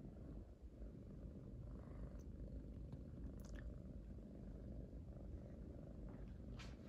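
A kitten purring softly and steadily, a low, fast, even rumble, with a couple of faint ticks partway through.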